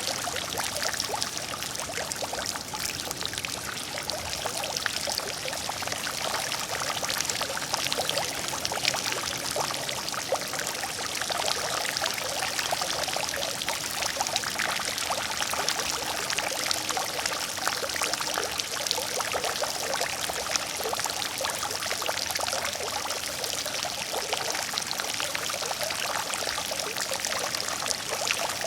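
Water fountain splashing steadily: a continuous pour of falling water with a dense patter of drops, no breaks or changes.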